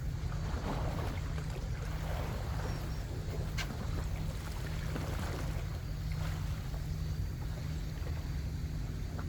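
Wind buffeting the microphone over the wash of the sea, with one sharp click a few seconds in.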